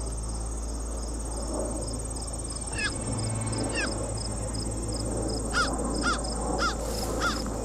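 Woodland insects trilling steadily at a high pitch with a regular ticking chirp, while a bird gives short, downward-sweeping calls, a couple about three seconds in and a quicker run of five over the last two seconds.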